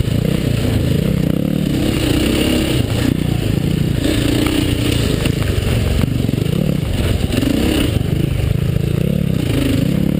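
KTM dirt bike engine heard on board while riding a rough trail, its pitch rising and falling as the throttle is opened and eased off. Rattle and scrape from the bike going over the ground runs underneath.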